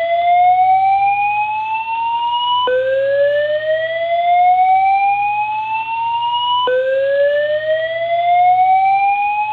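System Sensor SpectrAlert Advance SPW wall-mount fire alarm speaker sounding the slow-whoop evacuation tone. It is a loud tone that rises steadily in pitch over about four seconds, then drops back low and rises again, restarting twice.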